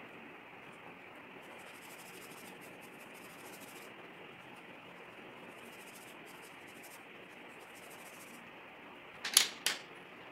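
Pencil shading on paper: fine scratchy strokes in two runs of a few seconds each over a steady background hiss, then two sharp knocks close together near the end.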